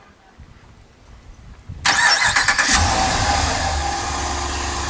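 The 6.4-litre HEMI V8 of a 2016 Ram 2500, started by the key fob's remote start. A faint low whir comes first, then the engine catches loudly about two seconds in and settles into a steady idle.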